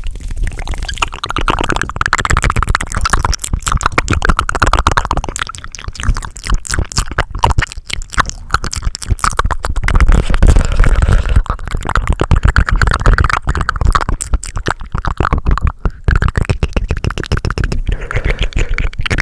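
Fast, aggressive ASMR mouth and hand sounds close to the microphone: a dense stream of rapid clicks and smacks that keeps going without a break.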